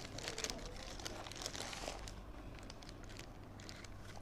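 A burger wrapper being handled and opened, crinkling in quick dense crackles for about two seconds, then sparser.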